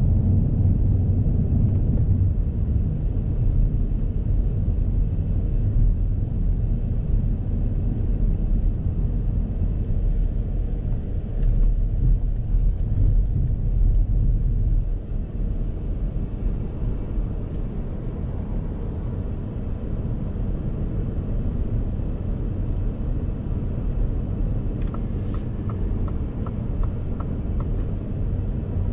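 2022 Ford F-150 Lightning electric pickup driving, with no engine note: a steady low rumble of tyre, road and wind noise that eases a little about halfway through. A short run of evenly spaced high ticks comes in near the end.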